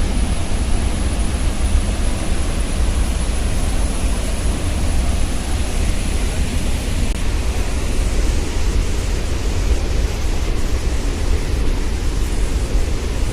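Steady, loud rush of a large waterfall, an even roar of falling water with a deep low rumble.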